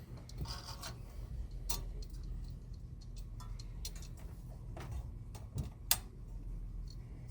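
Scattered, irregular small clicks and taps of hands handling desktop PC parts and screws, over a steady low hum.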